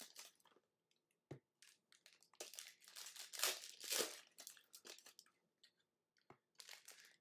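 Plastic wrapping of a trading card box crinkling and tearing as it is opened by hand, in irregular bursts with a few sharp clicks.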